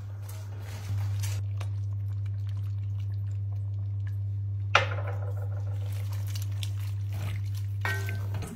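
Wooden spoon stirring cabbage in an enamelled cast-iron pot and cream being poured in, with one sharp knock about halfway through, over a steady low hum.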